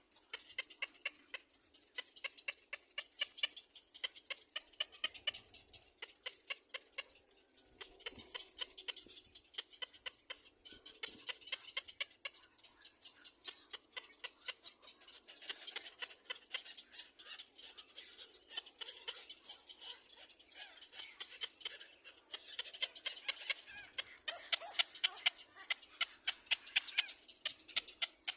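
A baby bird giving insistent begging calls: short, high-pitched chirps repeated about three times a second without a break.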